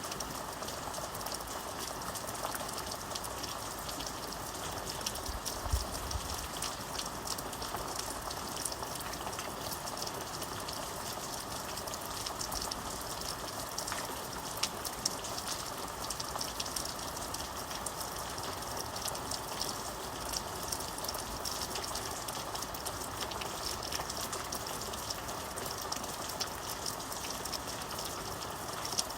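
Steady rain falling, an even hiss dotted with the sharp ticks of individual drops. About six seconds in there is a brief low thump.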